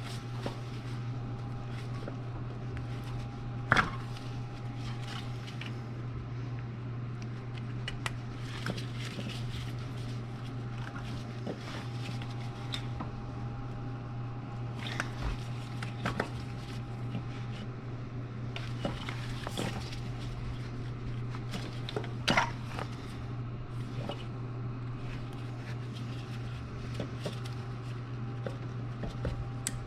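Scattered clicks and light clanks of hand tools and parts being handled during spark plug and plug wire work, over a steady low hum; two sharper knocks stand out, about four seconds in and about twenty-two seconds in.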